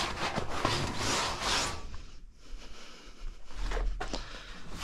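Cloth rag rubbed back and forth on a combine harvester's painted sheet-metal cover: a quick series of wiping strokes that stops about two seconds in. A brief low rumble follows near the end.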